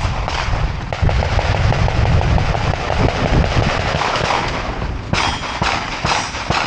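Gunfire: a run of rapid shots, with a string of sharper, louder shots in the last second and a half, over a steady hiss.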